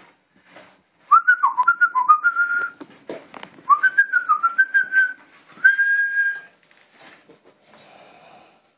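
A person whistling in three short phrases of high notes that step up and down, each phrase ending on a level held note.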